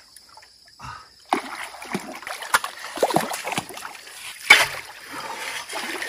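Muddy water splashing and sloshing as a man scoops at the bed of a shallow drainage ditch with his hands and wades through it. There is a sharp knock about four and a half seconds in.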